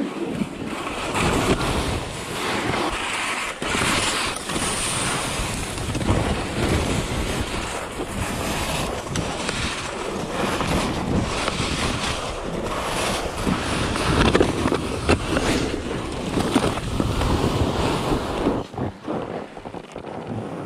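Skis hissing and scraping over thin, wind-scoured snow on a steep downhill run, surging with each turn, with wind rushing over the microphone.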